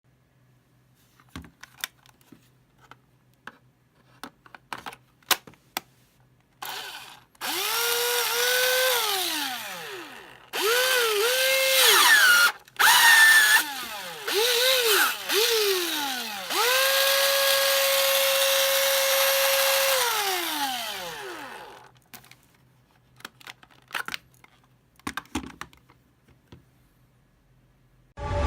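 Cordless drill motor run in several short bursts and then one longer run, each spinning up quickly, holding speed and winding down after the trigger is released. Scattered clicks and knocks from handling the drill come before and after the runs.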